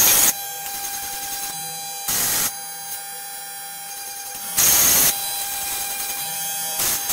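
Electric beard trimmer buzzing steadily on a homemade CNC beard-shaping rig, with loud short bursts of whirring noise about every two and a half seconds.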